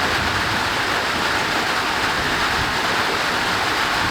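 Heavy rain falling in a steady downpour, an even hiss with no letup.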